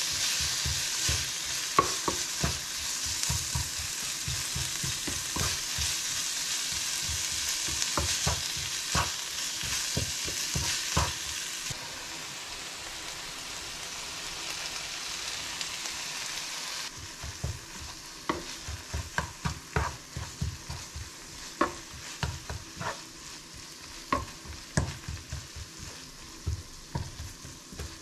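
Minced beef and onions sizzling in a frying pan while a spatula stirs them, with frequent sharp clicks and knocks of the spatula against the pan. The sizzle is strong at first, weakens about halfway through and drops much quieter after about seventeen seconds, leaving the spatula's clicks as the loudest sound.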